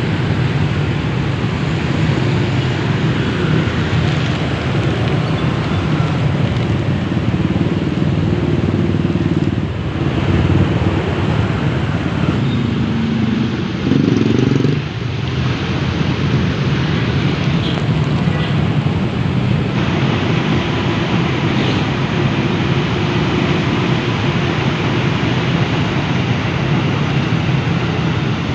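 Busy city road traffic: car and motorbike engines running in a steady low rumble, with one vehicle passing louder and close for about a second halfway through.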